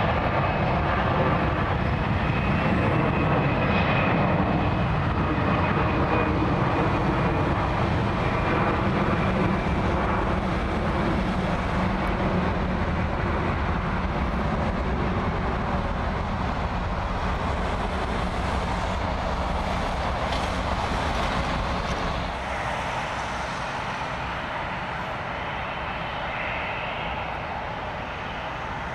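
Jet airliner engines on the runway: a loud, steady rumble with a whine that slowly fades, stepping down a little about 22 seconds in.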